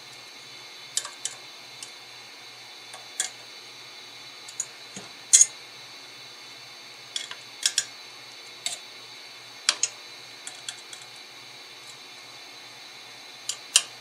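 Irregular sharp clicks and taps of small hard parts being handled during a PC mining-rig build, about a dozen in all, over a steady faint hiss.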